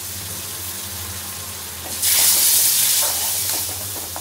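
Ground ginger, garlic and chilli paste frying in oil in a pan, sizzling steadily. About two seconds in, water is poured in and the pan flares into a loud, hissing sizzle that dies down over the next second or two as the paste is stirred.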